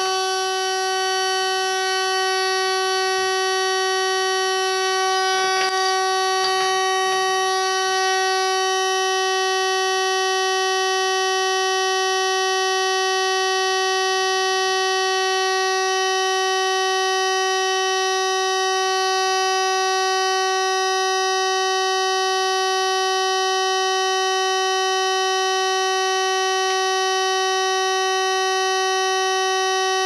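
Logic 4 keyswitch burglar alarm panel's built-in buzzer sounding one steady, unbroken buzzing tone: the exit-delay warning that the system is arming.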